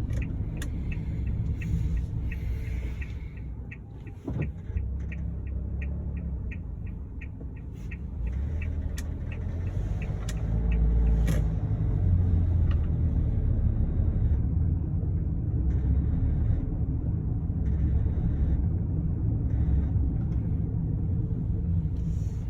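Suzuki Spacia kei car driving, heard from inside the cabin: a steady low engine and road rumble that swells about ten seconds in. Over the first eight seconds there is a fast, regular ticking, about two or three ticks a second.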